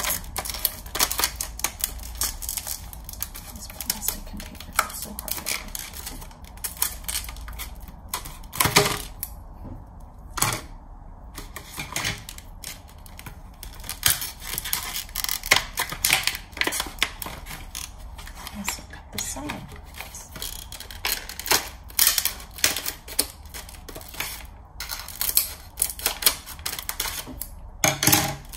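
Stiff clear plastic blister packaging crackling and clicking as it is handled and pried open by hand, a steady stream of sharp clicks and crinkles.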